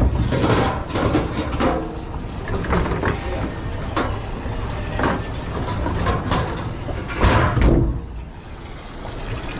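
Dishes and kitchenware clattering at a commercial dish-washing station, with many sharp knocks and clinks over a steady low hum and a louder clatter about seven seconds in.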